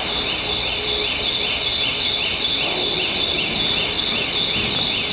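Cicadas singing in a steady, high, shrill chorus that pulses about three times a second.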